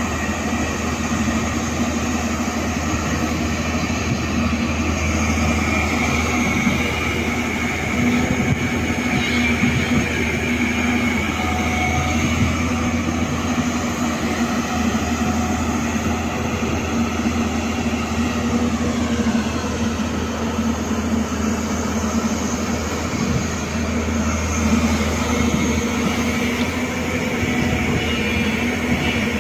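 Hyundai Robex 215 crawler excavator working under load: its diesel engine and hydraulics give a steady low hum, with a higher whine that drifts up and down as it digs mud and swings a bucketful over to a dump truck.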